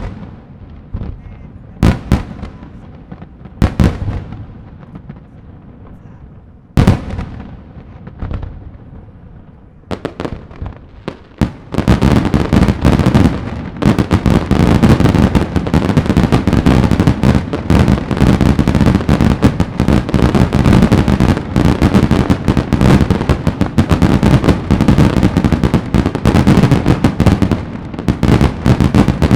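Daylight fireworks bursting with loud bangs. For about twelve seconds the bangs come singly, every couple of seconds, then they turn into a dense, continuous rapid-fire barrage.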